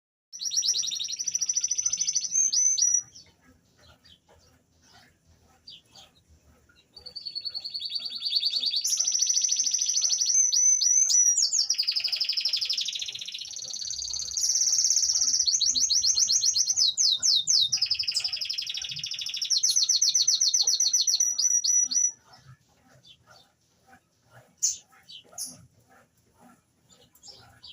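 Canary singing fast, high trilled phrases: a short burst at the start, then one long unbroken song of rapid rolling trills and quick downward-swept notes that stops suddenly about 22 seconds in. Faint scattered clicks follow.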